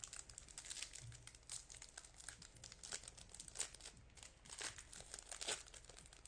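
Wrapper of a baseball trading-card pack crinkling and tearing as it is opened by hand, a run of quick crackles.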